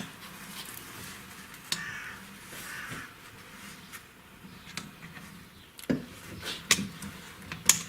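Scattered light clicks and taps, about five in all, from tools being handled while a dial indicator is set against a camshaft in the cylinder head.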